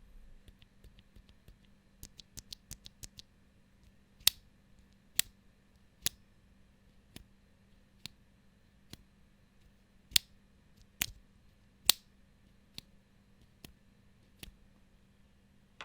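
Kailh Pro Burgundy linear mechanical keyboard switch being pressed, each stroke a sharp clack. There is a quick run of light presses about two seconds in, then single firm presses just under a second apart.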